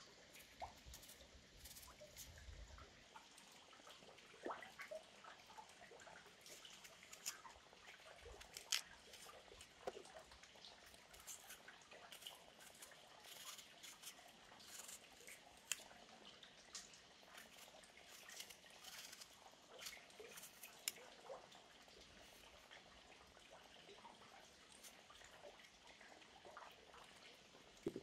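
Faint, irregular crisp clicks and snips of a knife cutting and peeling fresh apples on a wooden board, over a faint steady trickle of stream water.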